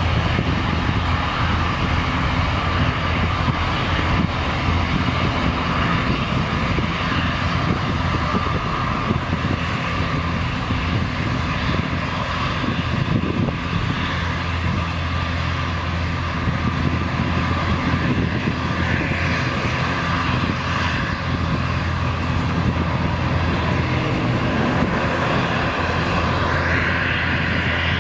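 Airbus A321 jet engines at takeoff power through the takeoff roll and lift-off: a steady loud rumble with a low drone underneath, a higher hiss growing near the end.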